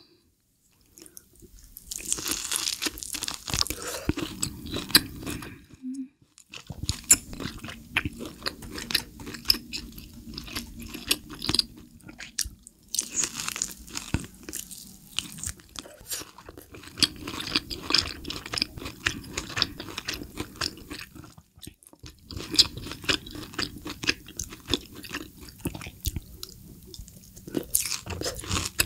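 Close-miked chewing of grilled Hanwoo tomahawk steak: wet mouth sounds and small clicks as mouthfuls of meat are chewed, broken by short pauses between bites.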